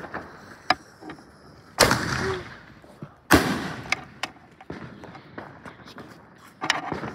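Consumer fireworks going off on the street: two loud bangs about a second and a half apart, the first about two seconds in, with scattered smaller pops and crackles around them.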